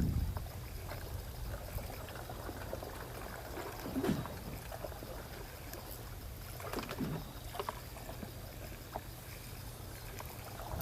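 Seaside ambience: a steady low rumble of wind and sea water, with a few faint short knocks and clicks.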